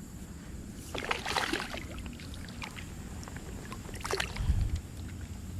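Casting with a baitcasting rod and reel on a creek: a short run of quick clicks and swishes about a second in, then a sharper hit with a low thump about four seconds in, over steady water noise.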